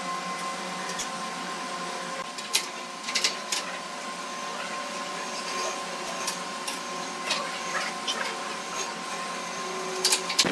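A steady motor hum made of several fixed tones, with a handful of light clicks and taps scattered through it.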